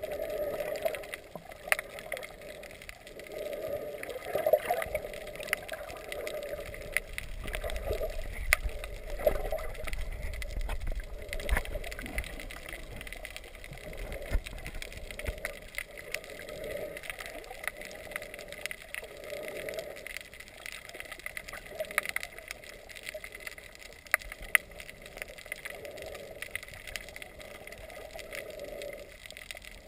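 Underwater water noise picked up through a GoPro's housing while snorkeling: muffled gurgling that swells and fades every second or two, with scattered sharp clicks throughout. A low rumble runs from about seven to fifteen seconds in.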